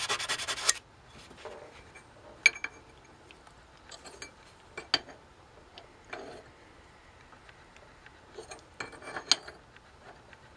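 Rapid back-and-forth hand strokes of an abrasive on the welded steel foot of a mini bike kickstand, stopping just under a second in. After that, scattered metal clinks and knocks as the steel part and tools are handled at the vise, three of them sharper than the rest.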